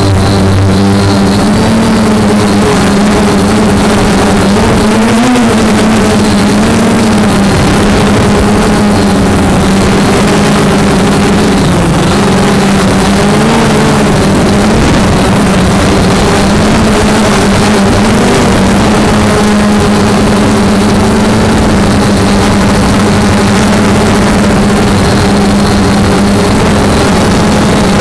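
Multirotor drone's electric motors and propellers buzzing steadily, heard close up from the aircraft itself. The pitch wavers up and down a few times as the motors change speed to steer and hold position.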